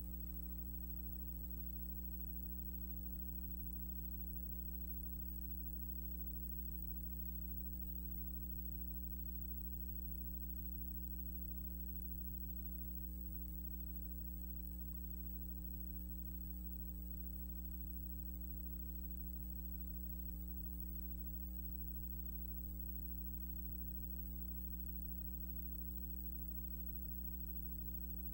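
Steady electrical mains hum with its overtones and a faint high whine, unchanging throughout; no other sound.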